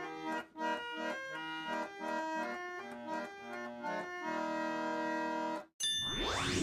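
Short electronic keyboard jingle in an organ-like tone, playing a run of chords that stops abruptly near the end, followed by a brief sweeping sound effect.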